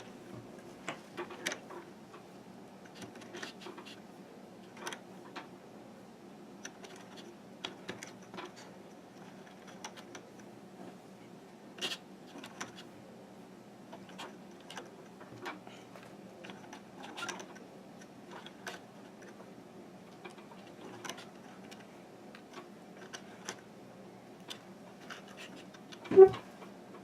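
Faint scattered clicks and taps of rubber bands being stretched and placed on the plastic pegs of a Fun Loom, over a steady low hum. There is one louder thump near the end.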